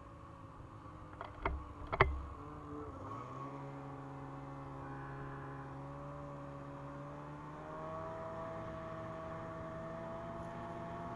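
Snowmobile's two-stroke 600 carbureted engine (Ski-Doo MXZ 600 Carb Sport) running, with two sharp knocks about one and a half and two seconds in. The engine note then rises and steadies, and steps up again about eight seconds in.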